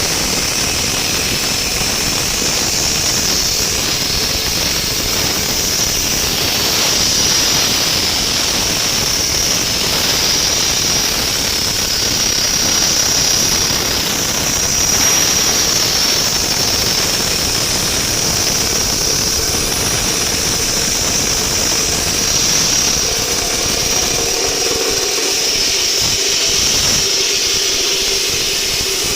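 Diamond saw cutting through reinforced concrete: a loud, steady, high-pitched whine over a rough grinding noise.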